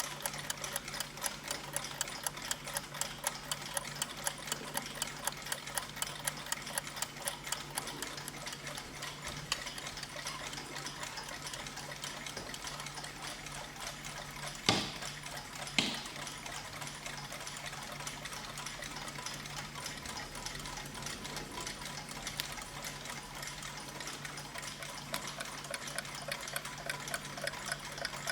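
Several mechanical clocks ticking together, fast overlapping ticks at about four a second, with two louder clicks about a second apart halfway through.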